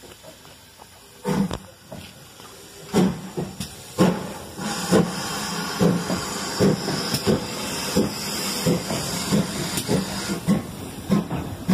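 GWR 4575-class 2-6-2 tank steam locomotive moving slowly past at close range, hissing steam with a regular beat of chuffs and knocks from the running gear. The beat runs at about one and a half to two strokes a second and gets louder from about three seconds in.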